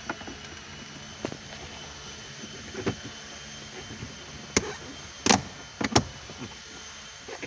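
Plastic trim of a Toyota C-HR's centre console clicking and knocking as it is pressed by hand into its clips: a few single sharp clicks, then a louder cluster of snaps about five to six seconds in as the panel seats.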